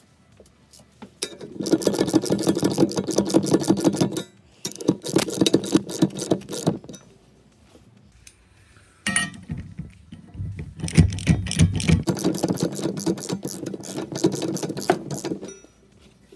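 Ratchet wrench clicking rapidly in several runs of a few seconds each, with short pauses between them, as a nut is run along the threaded end of an anti-roll bar link.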